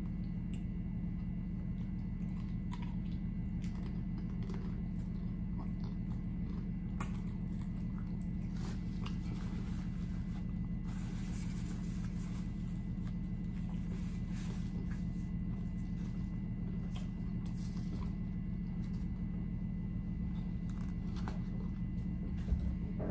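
Close-up crunching and chewing of a tortilla chip scooped with burrito-bowl food, in scattered crunches over a steady low hum, with a paper rustle about halfway through.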